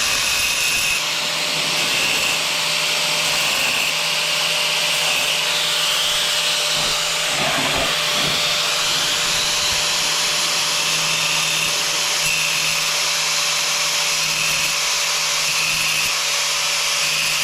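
Angle grinder running steadily, its spinning blade grinding into the face of a hard tile to begin a round hole.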